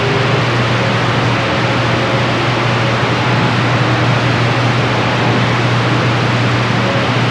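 CB radio receiver hissing with static between transmissions, an even, steady rush with a constant low hum under it.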